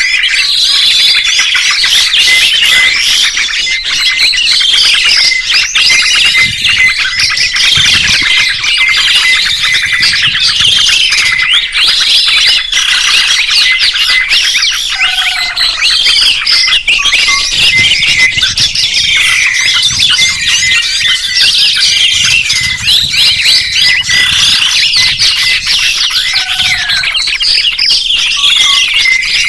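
Many songbirds chirping and twittering at once, a dense, unbroken mass of overlapping high, quick sweeping notes, with a short lower call now and then.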